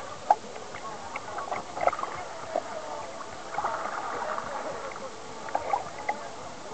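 Kayak being paddled: a few sharp knocks, about one every second or two, from the paddle against the kayak's hull, over distant chatter of many voices.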